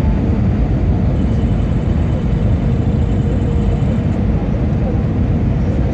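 Steady low rumble of cabin noise inside a jet airliner descending on approach: engine noise and airflow over the fuselage, unchanging throughout.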